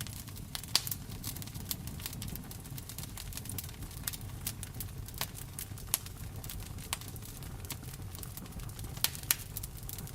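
Wood fire in a fireplace crackling, with irregular sharp pops over a steady low rumble. The loudest pops come about a second in, around six seconds, and twice close together near the end.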